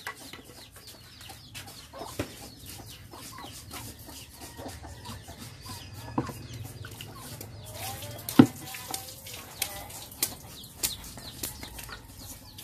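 Knife blades scraping over the skin of a whole pig carcass in many short strokes, with chickens clucking in the background. A sharp knock about eight seconds in is the loudest sound.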